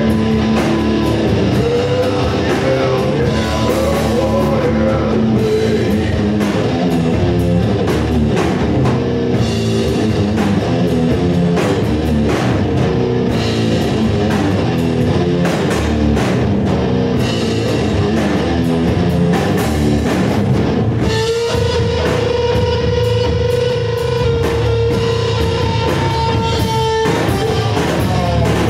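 Live rock band playing loud: electric guitars, bass guitar and drum kit, with a singer's voice in the first part. For several seconds near the end, one long held note rings out over the drums.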